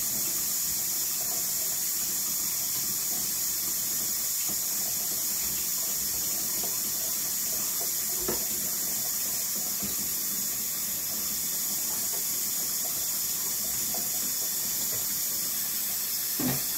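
Kitchen faucet running steadily into a stainless steel sink during dishwashing, with a couple of light knocks from the dishes, one about halfway through and one near the end.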